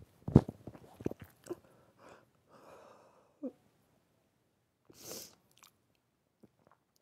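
Breath and mouth sounds of a woman who has been crying: a dull bump just after the start, small clicks, a short voiced whimper about three and a half seconds in, and a sharp sniff about five seconds in.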